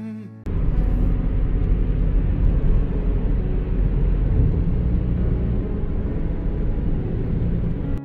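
Loud, low, steady rumbling noise that cuts in suddenly about half a second in, with a level that wavers throughout.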